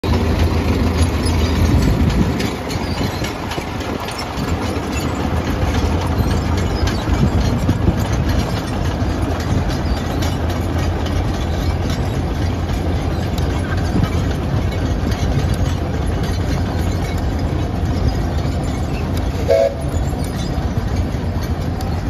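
Old half-track logging truck's engine running steadily as it drives across the field, with the rattle of its crawler tracks. A short high tone sounds briefly near the end.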